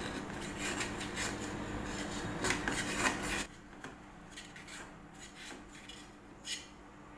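A knife scraping along the inside edge of a metal cake tin, with light clicks of the blade against the tin, as it loosens a steamed cake from the sides. The scraping is louder for the first three seconds or so, then fainter, with a few separate clicks.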